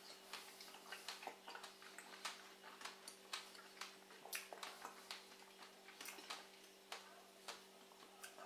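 Chewing fresh strawberries: faint, irregular wet clicks and smacks of the mouth, two or three a second, over a faint steady low hum.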